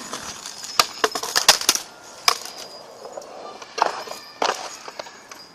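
A series of sharp clicks and knocks, bunched together about a second in, with single ones about two, four and four and a half seconds in.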